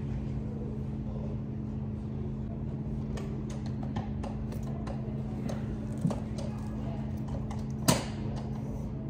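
Mesh office chair knocking and clicking a few times as someone shifts and leans back in it, the loudest knock near the end, over a low steady hum.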